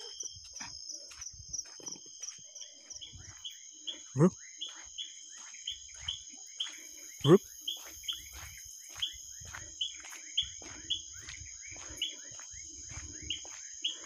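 Night insects, crickets among them, trilling steadily, with a short high chirp repeating about twice a second. Twice, about four and seven seconds in, a brief loud sound drops steeply in pitch.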